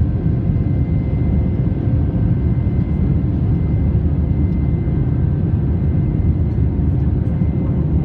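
Steady rumble of an Airbus A320's jet engines and rushing air, heard inside the passenger cabin during the climb after takeoff, with faint steady whining tones above the drone.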